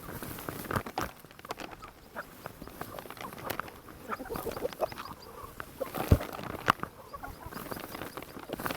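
Chickens clucking, with many short calls and scattered sharp clicks and knocks.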